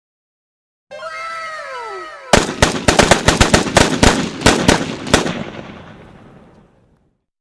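Gunfire sound effect: a falling whistle-like tone, then a rapid, irregular burst of about fifteen loud shots lasting about three seconds, trailing off in a fading echo.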